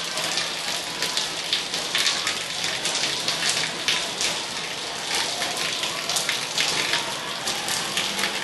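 Heavy rain falling steadily on a flooded concrete yard, a dense patter of drops and splashes.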